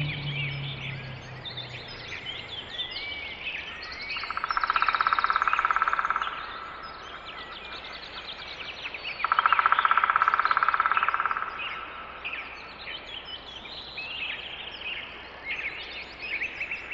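Birds chirping and calling outdoors, with two louder, rapidly pulsed trills of about two seconds each, one about four seconds in and one about nine seconds in. A low rumble fades out over the first two seconds.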